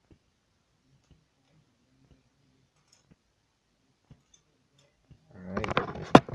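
Faint, evenly spaced ticks about once a second. Near the end comes about a second of rustling and knocking, with one sharp knock as the loudest sound, as the camera is picked up and moved.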